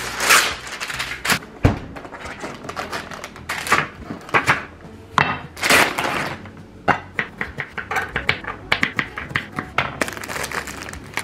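Close-miked food-preparation sounds: baking paper pulled from its cardboard box and rustling, a plastic wrap packet crinkling, then a run of quick knife taps on a wooden chopping board as cherry tomatoes are cut.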